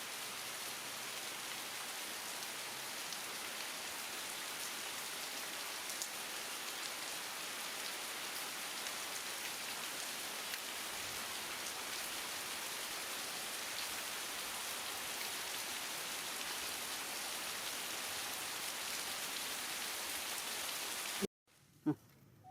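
Heavy rain falling steadily: a dense, even hiss with a few scattered drop ticks. It cuts off abruptly near the end.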